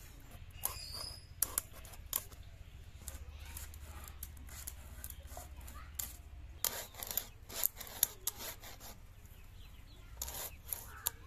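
A large rohu fish being worked against a boti, an upright curved kitchen blade: its fins cut off and its scales scraped in bursts of quick, sharp scraping and snipping strokes, with a quieter lull in the middle.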